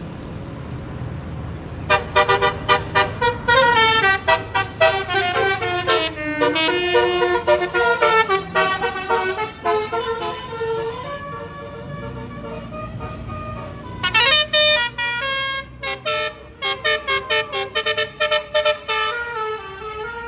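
Bus Basuri telolet horn on roof-mounted trumpets playing a quick multi-note tune in short toots. It starts about two seconds in, pauses briefly, and plays again from about fourteen seconds in, over a bus engine running.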